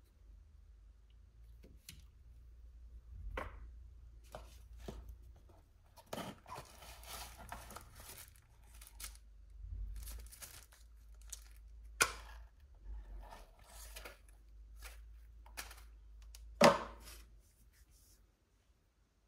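Packaging being handled: crinkling and rustling of paper and plastic wrapping in irregular bursts, with a few sharp knocks of items set down on a wooden table, the loudest near the end.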